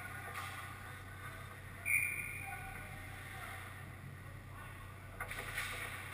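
Ice hockey rink ambience with a steady low hum and distant skating and voices from play at the far end. One short high call about two seconds in is the loudest sound, and a few sharp stick and puck clacks follow about five seconds in.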